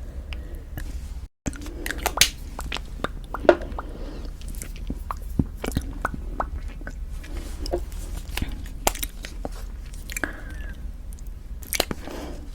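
Lipstick being applied close to the microphone: lips smacking and pressing together in many small wet clicks. The sound drops out for a moment about a second in.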